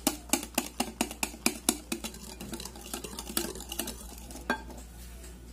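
Wire whisk stirring cake batter in a glass bowl, its metal wires clicking against the glass about five times a second. The clicks thin out after about two seconds and stop near the end.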